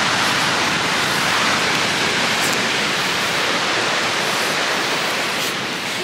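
Steady rushing noise of rough ocean surf breaking on a beach in stormy weather.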